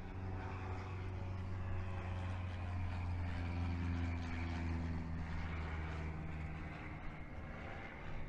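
A low, steady engine drone with a humming pitch that shifts slightly. It grows louder toward the middle and then eases off.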